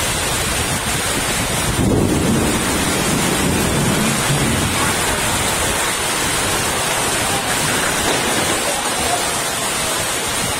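Torrential rain and strong gusting wind of a rainstorm, a dense steady rush. About two seconds in it swells into a deeper rumble for a couple of seconds.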